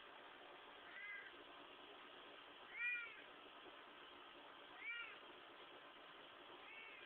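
Domestic cat meowing in four short calls about two seconds apart, each rising then falling in pitch, the second the loudest and the last faint, as it is squeezed.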